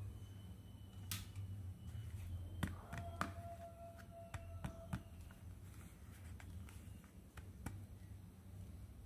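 Small plastic toy pieces being handled: a string of light, irregular clicks and taps over a low steady hum.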